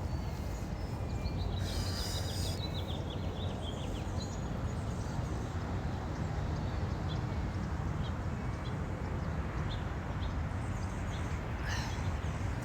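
Small birds chirping, with a quick run of high chirps about a second and a half in and scattered faint chirps after, over a steady low background rumble.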